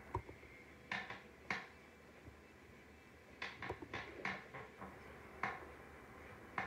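A scattering of short, light taps and clicks in a quiet room, about ten in all, with a quick run of them a little past the middle.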